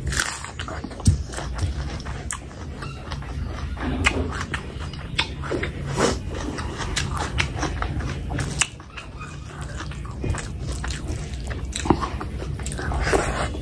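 Close-miked eating: crisp crunches as a whole raw onion is bitten into, then steady chewing with sharp crunches every second or so. A steady low hum runs underneath.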